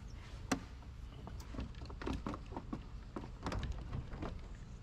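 Plastic wiper cowl panel of a Gen 3 Toyota Prius being worked loose and lifted out from under the windshield: a string of plastic clicks and knocks, the sharpest about half a second in and a quick cluster near the end.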